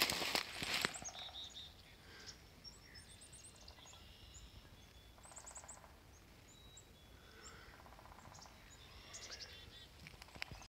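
Several birds calling in quiet woods: scattered short high chirps and two brief trills. A few footsteps scuff through dry leaves in the first second and again near the end.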